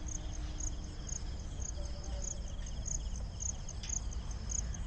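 Insects chirping in short high-pitched pulses, a few a second, over a steady low rumble.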